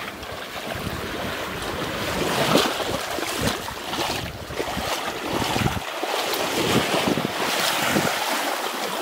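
Wind buffeting the microphone over waves washing on a beach, rising and falling in irregular gusts.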